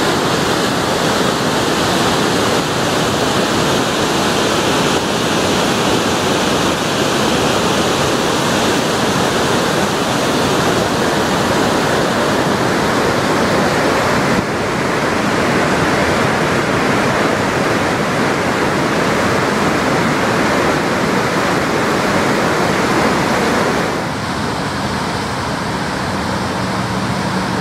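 A dam spillway running high after heavy rain: a loud, steady rush of water pouring over the crest and churning into whitewater. Its tone shifts suddenly about halfway through and again near the end.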